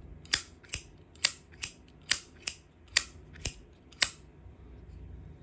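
Zippo lighter lid, here a 1997 Camel emblem Zippo, snapped open and shut repeatedly. It gives about nine sharp metallic clicks, roughly two a second, which stop about four seconds in.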